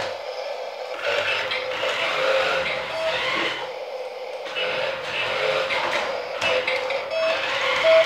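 Toy remote-controlled car's small electric motor whirring as its wheels run over a hard floor, in two runs of about two and a half seconds each, the first starting about a second in.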